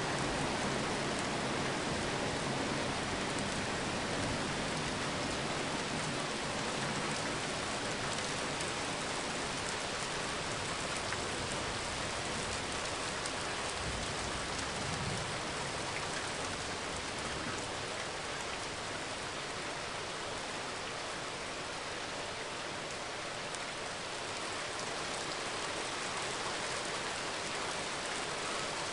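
Steady rain falling on a parking lot, an even hiss of drops on pavement, with a brief faint low rumble about halfway through.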